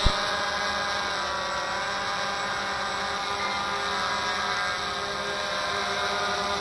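Walkera QR X350 PRO quadcopter hovering: a steady buzzing whine from its four brushless motors and propellers, the pitch shifting slightly as the motor speeds adjust. A single sharp click right at the start.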